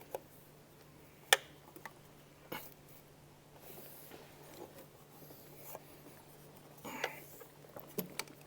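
Sparse clicks and clinks of a socket wrench working a bolt loose, with one sharper click about a second in and a small cluster near the end, over a faint steady hum.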